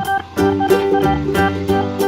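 Upbeat background music with a steady beat and plucked-string notes.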